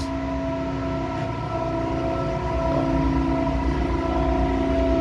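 Steady machinery drone aboard a ship: several constant tones held over a low rumble.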